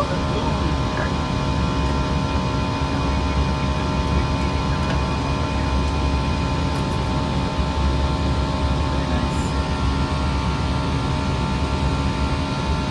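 Steady flight-deck noise of an airliner climbing after takeoff: a constant rush and low drone of airflow and engines, with several steady hum tones running through it.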